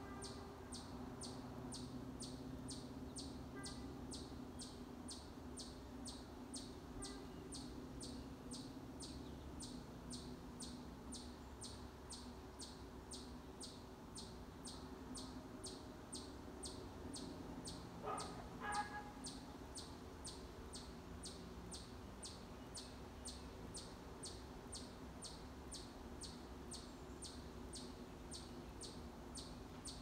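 High insect chirping repeating at an even rate of about two pulses a second, with one short bird call about two-thirds of the way through over a low steady hum.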